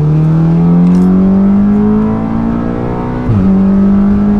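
Audi S3's turbocharged 2.0-litre four-cylinder, fitted with an EQT Vortex XL big turbo and running an E85 tune, pulling hard at full throttle, heard from inside the cabin. The revs climb steadily, drop sharply on an upshift about three seconds in, then start climbing again.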